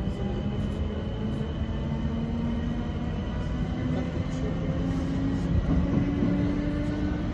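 Class 455 electric multiple unit accelerating: its traction motor whine rises slowly and steadily in pitch over a constant running rumble.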